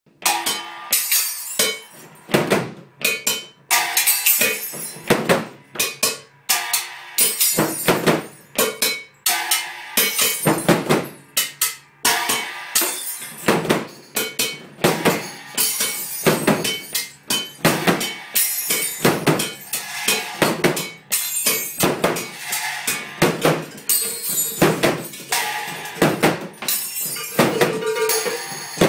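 Percussion and struck objects being hit again and again in an uneven rhythm, sharp clattering strikes, some of them ringing with a pitched tone, played as noise to be recorded for a song.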